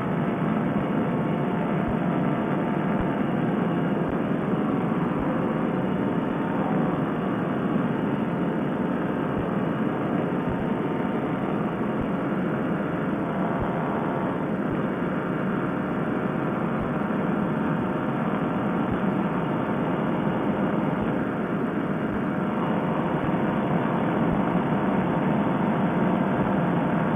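Fresh Breeze Monster paramotor engine and propeller running at high power through a takeoff run and low climb-out, a loud steady drone that builds in the first second. The engine's muffler has failed, leaving it short of power.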